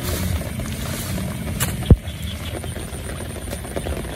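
Low, muffled rumble of people wading and water moving in a shallow flooded field, with one sharp knock about two seconds in.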